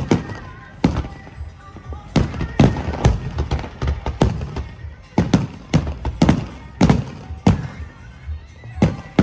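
Fireworks exploding overhead in a rapid, irregular series of sharp bangs, about fifteen in nine seconds, each with a short echoing tail.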